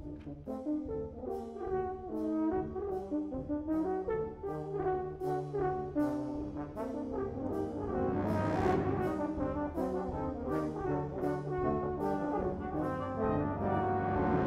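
British-style brass band playing, held brass chords over a steady beat of sharp strokes about twice a second. The band grows louder about eight seconds in.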